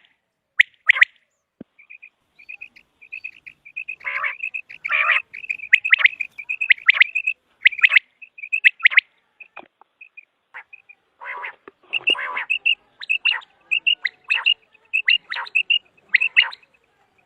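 Common quail calling: quick runs of short, clear notes repeated through the stretch, with louder, rougher calls mixed in a few times.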